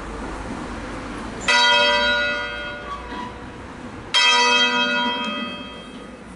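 Swung church bell from a ring of six bronze bells cast by Crespi of Crema in 1885, struck twice about two and a half seconds apart, each stroke ringing on and fading away: slow strokes of a funeral peal.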